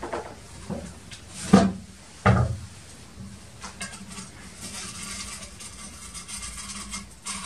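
Clunks and knocks of a large enamel tray and a knife against its rim. Four knocks come in the first couple of seconds, the loudest about a second and a half in, followed by quieter scraping as the knife is worked round the edge of the dried kaymak.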